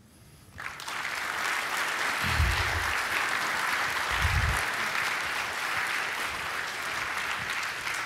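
Audience applauding, rising in about half a second in and then holding steady. Two low thumps come about two seconds apart during it.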